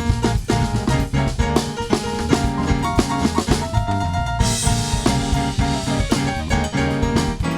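Instrumental music with a steady drum-kit beat under pitched melodic notes.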